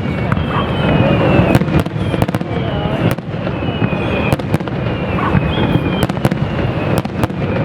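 Fireworks display: a rapid, irregular run of sharp bangs and crackles, several a second, over a continuous low rumble of bursts.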